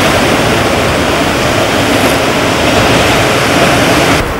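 A loud, steady rushing noise with no pitched sound in it, which cuts off suddenly near the end.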